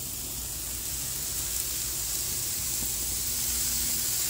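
Steady sizzle of pork cutlets and vegetables cooking on a hot gas grill, getting a little louder from about a second in as more cutlets go onto the grate.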